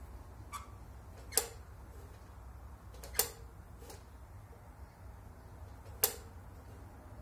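Lawn mower's metal safety bar being moved by hand on the handle, clicking sharply three times, about a second and a half in, about three seconds in and about six seconds in, with a few fainter ticks between, over a faint low rumble.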